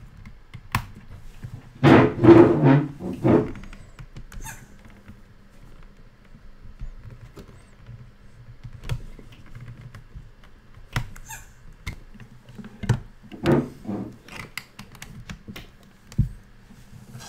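Handling noise as a USB cable is moved and plugged into a different port on a computer: scattered clicks and knocks, with a louder stretch of rubbing and rustling about two seconds in.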